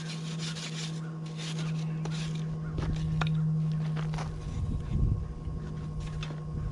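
A forge running with a steady, even hum and hiss, with a few light metallic clinks of the steel bar being handled around the middle.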